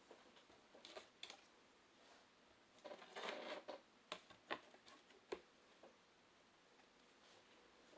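Faint handling noises from repair work on a tablet: scattered light clicks and taps, with a brief rustle or scrape a few seconds in.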